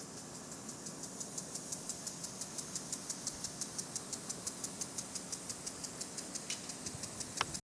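Cicadas singing in a fast, even pulsing rhythm of about eight pulses a second, high-pitched and strengthening about a second in. A sharp click sounds just before the audio cuts off.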